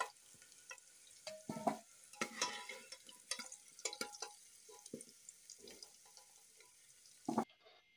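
A metal ladle scrapes and clinks against a pressure cooker as fried potato pieces are scooped out of hot oil, over a faint sizzle of the oil. The sound cuts off suddenly about seven seconds in.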